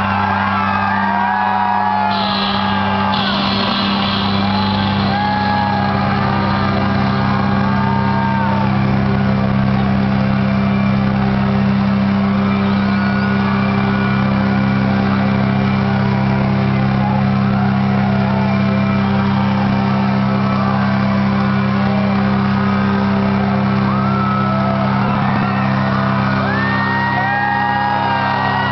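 Rock concert heard from inside the crowd: a steady low chord holds through the PA with no drumbeat, while fans shout and whoop over it, loudest near the start and again near the end.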